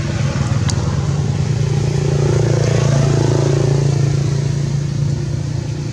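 A motor engine running steadily, a little louder around the middle.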